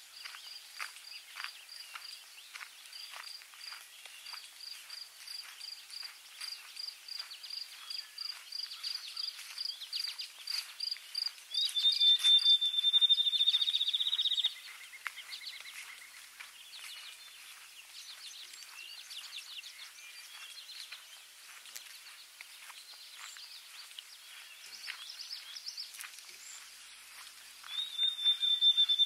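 Songbirds singing: a long series of evenly spaced high chirps for about the first eleven seconds, then a loud rapid trill lasting about three seconds, which comes again near the end.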